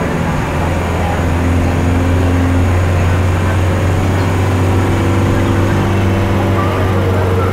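Steady low drone of a moving bus's engine and road noise, heard from inside the passenger cabin.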